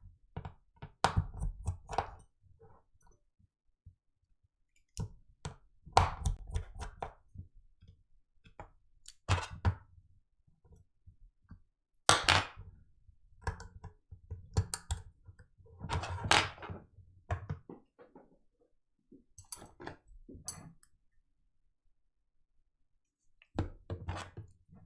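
Scattered clicks, taps and thunks of small tools and iPhone parts being handled and set down on a repair bench, coming in short clusters every few seconds with quiet gaps between.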